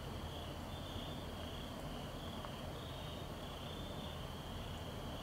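Chorus of night insects trilling steadily in regular pulses, a little more than one a second.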